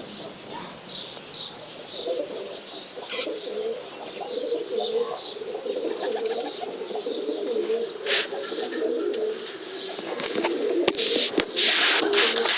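Pigeons cooing continuously, with short high chirps over the top. Near the end come several loud rustling bursts, like wing flapping.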